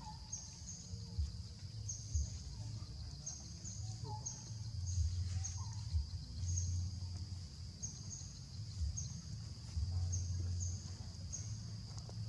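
Tropical forest ambience: a steady high insect drone with a short, high chirping call repeating about once or twice a second. A low rumble rises and falls underneath.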